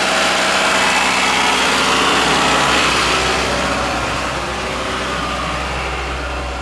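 Freshly rebuilt Toyota 5S-FE 2.2-litre four-cylinder engine running steadily on one of its first runs after the rebuild, a little fainter after about four seconds.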